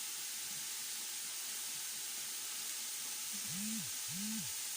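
Steady high-pitched hiss of a pan sizzling on the stove. Near the end come two short hummed tones, each rising and falling in pitch.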